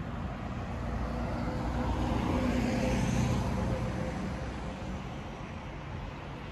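Street traffic: a motor vehicle passes close by, its engine hum and tyre noise rising to a peak about three seconds in, then fading into steady traffic noise.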